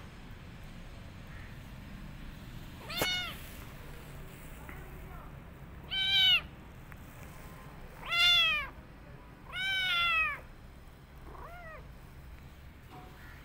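Kitten meowing: four high, arching meows about two seconds apart, the last one the longest, then a faint fifth.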